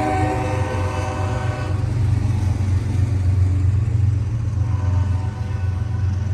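A CSX freight locomotive's horn trailing off about two seconds in, over a steady low rumble from the train.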